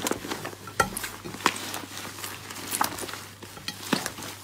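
Hands squeezing and pulling a large mass of fluffy slime: irregular sticky squelches and small popping crackles, with a few sharper pops about one and one and a half seconds in.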